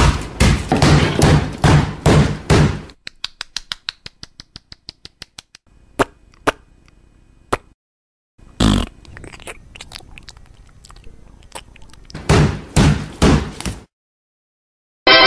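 Cartoon sound effects of thumps and hits. A rapid run of heavy thumping strokes comes first, then a fast patter of sharp clicks, one loud hit a little past the middle, and another run of heavy thumps near the end.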